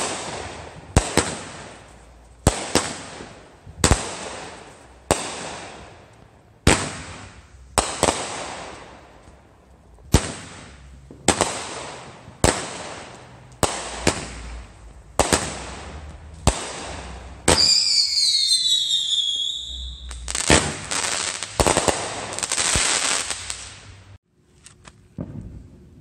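Consumer aerial fireworks, a cake firing shot after shot with a sharp bang about every second, each fading into a hiss. About two-thirds of the way in, a cluster of whistles falls in pitch. Then comes a few seconds of dense crackling before it stops near the end.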